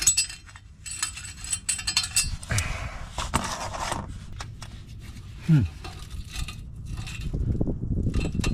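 Metal clinking and scraping as the exhaust pipe joint and its old hose clamp are worked loose by hand, with a scraping stretch a few seconds in and a short falling squeak or groan about five and a half seconds in.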